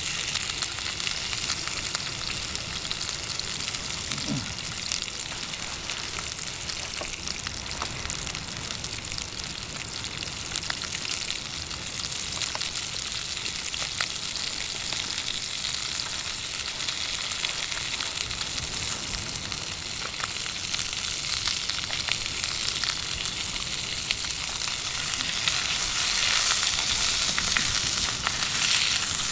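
Food frying and sizzling over a campfire: a steady hiss with scattered small crackles, swelling louder about four seconds before the end.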